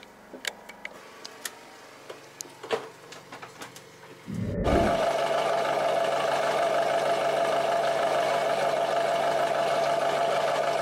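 A few faint light clicks and knocks, then about four seconds in the yacht's inboard diesel engine cranks briefly, catches and runs steadily and loudly. It is being started to test the freshly welded and refitted exhaust muffler.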